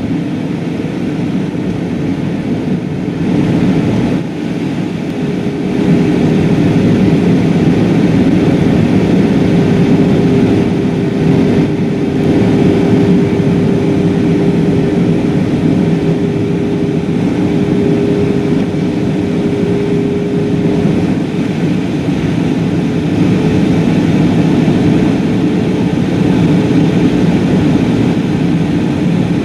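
Airbus A320-232 cabin noise on approach, heard inside the cabin: the steady rush of airflow and hum of its IAE V2500 turbofan engines. A steady tone runs through it from about five seconds in until about twenty-one seconds, and the noise gets a little louder from about six seconds in.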